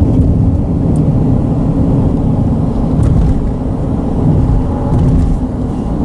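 A car driving, its tyres giving a steady low rumble and drone on the road surface.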